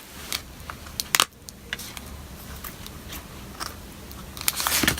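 Scattered crackles and light clicks of plastic being handled: the protective film and plastic of a replacement laptop battery crinkling as it is worked with by hand, with a short cluster about a second in.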